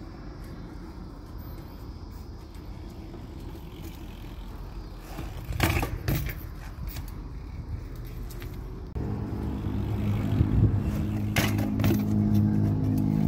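BMX bike rolling on concrete, with a loud clatter of impacts about six seconds in as the bike hits the concrete wall and comes off it. From about nine seconds a steady motor-vehicle engine hum sets in, with more clanks of the bike near the end.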